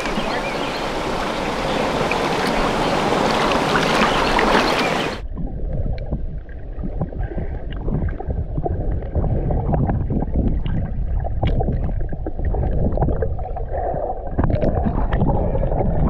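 River water splashing and sloshing right at the microphone at the surface. About five seconds in the sound turns abruptly muffled, as heard underwater: a low rumble of moving water with small clicks and knocks.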